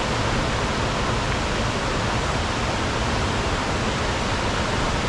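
Powerful waterfall crashing down a tall drop into its pool, a steady, even roar of rushing water.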